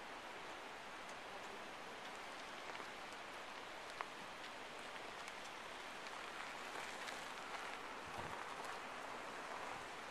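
Steady hiss of outdoor background noise, dotted with faint small ticks, with one sharper click about four seconds in and a brief low thump near the end.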